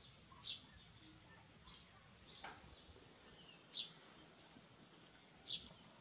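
A series of six short, high-pitched chirps, each falling quickly in pitch, at uneven intervals.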